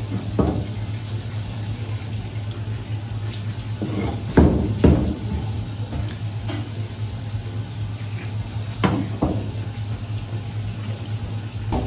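Tap water running steadily onto a plastic cutting board, with a few short knocks on the board: one about half a second in, two around four to five seconds in, and two near nine seconds.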